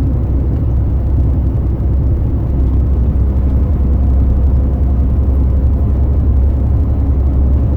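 Steady low engine and road rumble of a bus heard from inside while it drives.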